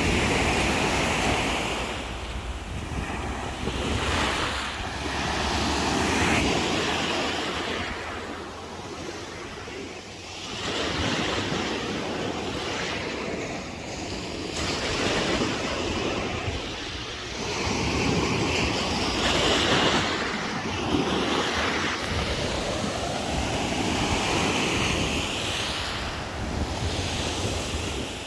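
Black Sea waves breaking and washing on the shore, surging and falling back every few seconds, with wind buffeting the microphone.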